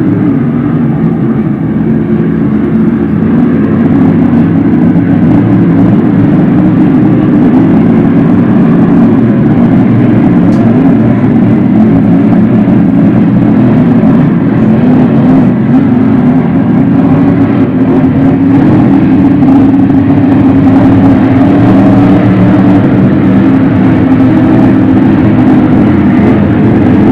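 Grand Prix hydroplane racing boats' engines running at racing speed, several boats heard together as a loud, steady drone.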